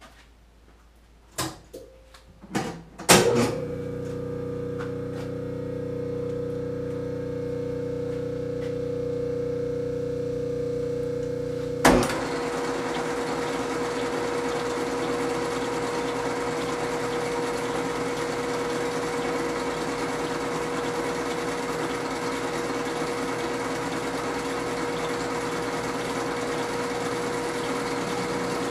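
Metal lathe being started: a few clunks of the controls, then its motor and drive running with a steady hum. About twelve seconds in a sharp clunk, after which the lathe runs on with a louder, rougher noise.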